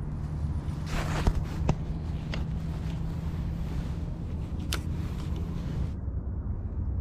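Spinning rod and reel being handled: a short rustle about a second in and a few sharp clicks, over a steady low rumble.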